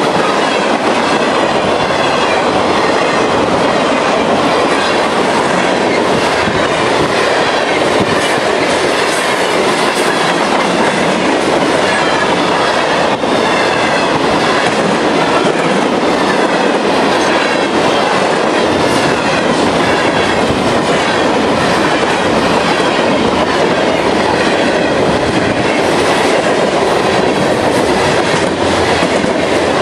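Freight cars of a mixed CSX train rolling past close by. Their steel wheels make a loud, steady rumble on the rail, with clickety-clack as the trucks pass over rail joints.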